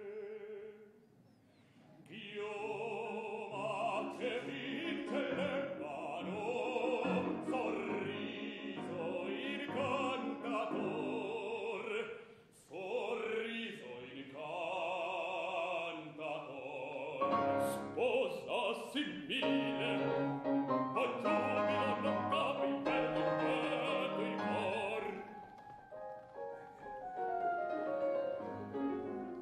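Male opera singer singing in full operatic voice with wide vibrato, accompanied by piano. A brief quiet moment comes near the start, the voice comes in after about two seconds, and near the end it stops, leaving the piano playing softly.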